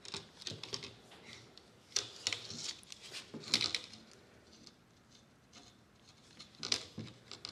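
Irwin Quick-Grip bar clamp being squeezed shut on a 3D-printed plastic die over a steel window channel: a few irregular clusters of short plastic-and-metal clicks as the trigger is worked and the jaws tighten.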